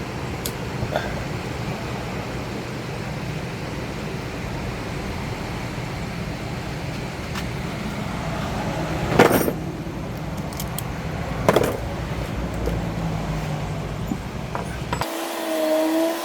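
A steady low rumble with two sharp knocks, about nine and eleven and a half seconds in. Near the end the rumble stops abruptly and a steady humming tone takes over.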